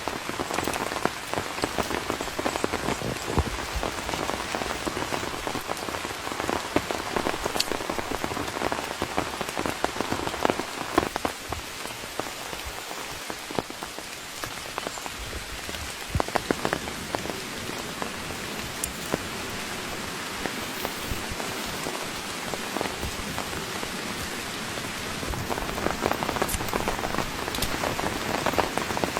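Steady rain falling, with many individual drops striking close by as sharp taps over the hiss. It eases somewhat through the middle and picks up again near the end.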